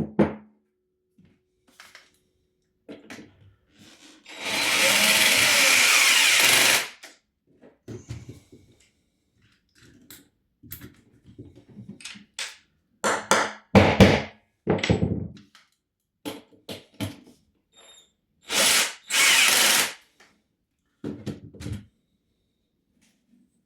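Power drill at work on a floor fix anchoring chipboard through the joist to the concrete slab. It runs in two steady bursts of about two seconds each, the second broken by a short pause, with scattered knocks and clicks in between.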